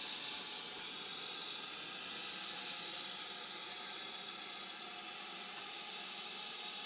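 BR Standard Class 4MT 2-6-4 tank locomotive 80151 standing in steam, giving off a steady, unbroken hiss of escaping steam.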